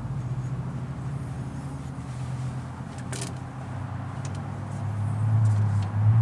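A steady low engine hum that grows louder over the last second or so, with a single light click about three seconds in.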